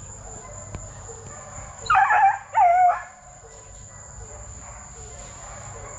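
Young Plott Tan hound, a Plott hound crossed with a black and tan coonhound, giving two short barks in quick succession about two seconds in, the second dropping in pitch. A steady high insect drone runs underneath.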